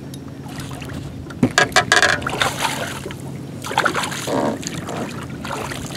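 Water splashing in short bursts as a hooked smallmouth bass thrashes at the surface beside the boat and is grabbed by hand, over a steady low hum from the boat's motor.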